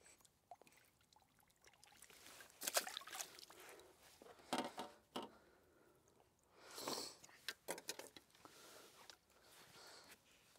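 Faint, scattered small splashes and handling noises as the whip's line and tackle are worked in and out of the water: about half a dozen short sounds with quiet between them.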